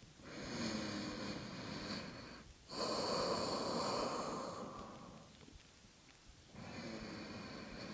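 A woman's faint, slow breathing: three long breaths of about two seconds each, with short pauses between them.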